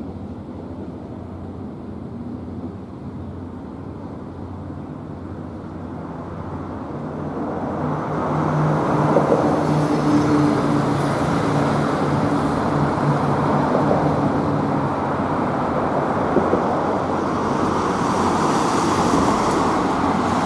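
N700A Shinkansen train pulling into the station: a low running rumble that builds about eight seconds in to a loud, steady rush of wheel and motor noise, with a steady low hum through the middle.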